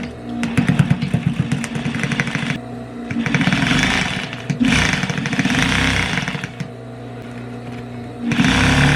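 Electric sewing machine stitching a zipper into a coat, run in four bursts with short stops between, the needle's rapid clicking plain in the first run.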